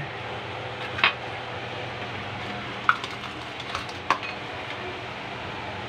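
A few light clicks and taps of a spoon against a cup and plate as peanut butter is spread onto banana for the suman filling, over a steady low hum.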